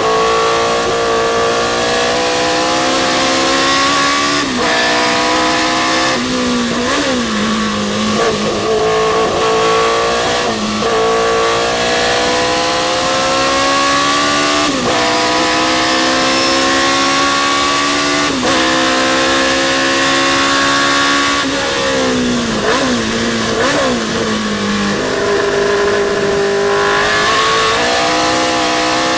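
Historic sports racing car engine at full throttle, climbing in pitch through each gear with sudden drops at the upshifts, over and over. About three quarters of the way through it falls away in steps with short blips, as the car brakes and shifts down, then climbs again.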